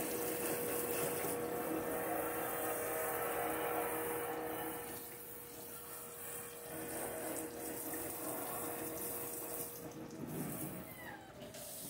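Water running from a kitchen faucet or sink sprayer into the sink as a large silver serving platter is rinsed of polish. A thin steady tone sounds with the water and stops near the end.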